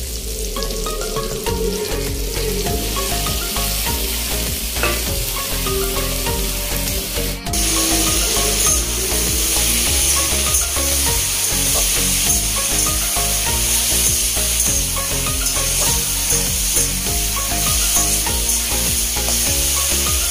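Potato, cauliflower and tomato pieces frying in hot oil in a metal kadai for a potato-cauliflower curry, with a steady sizzle. The sizzle gets louder and hissier about seven seconds in.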